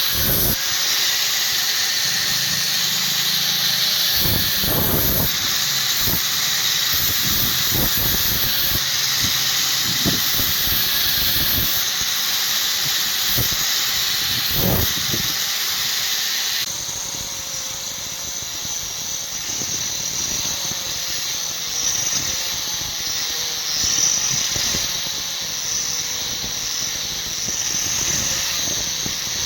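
Power grinder working steel, a steady high hissing grind; about two-thirds of the way through the sound changes and eases slightly.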